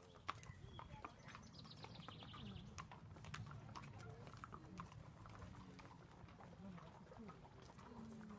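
Faint, irregular clip-clop of several ponies and horses walking on paving stones.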